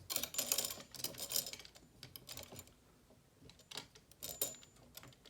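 Bursts of light clicking and rattling as a lamp switch is fumbled at; the lamp's switch knob has come off.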